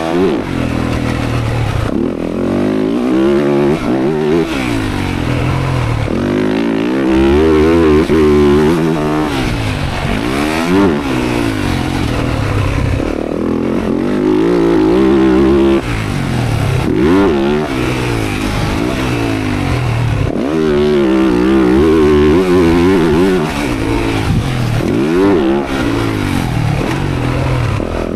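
Dirt bike engine ridden hard around a motocross track. The revs climb and drop off again and again every second or few as the throttle is rolled on and chopped through the corners.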